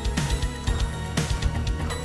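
Background music with a steady beat of about two strikes a second over a heavy bass line.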